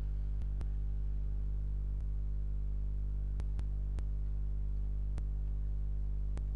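Steady low electrical hum from the recording setup, with a few faint sharp clicks, some in pairs, from a computer mouse as windows are switched.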